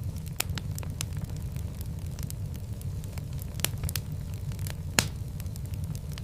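Fire crackling in a fireplace: a steady low rumble of flames with many scattered sharp pops and snaps, the loudest pop about five seconds in.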